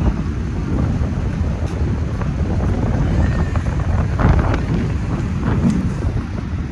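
Storm wind buffeting the microphone: a loud, steady, deep rumble that swells briefly about four seconds in.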